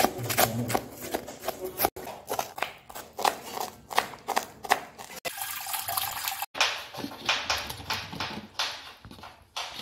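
Kitchen knife chopping cabbage on a wooden cutting board, quick strokes several a second. About two-thirds through, water splashes as button mushrooms are tipped into a steel bowl of water.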